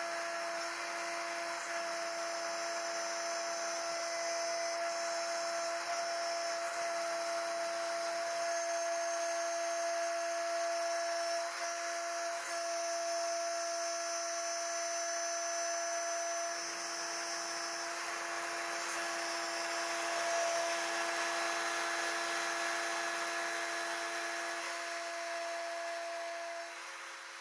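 CNC router spindle whining steadily as a small end mill cuts brass plate. Under it is the hiss of a compressed-air minimal-lubrication mist nozzle. The whine and level fall away just before the end.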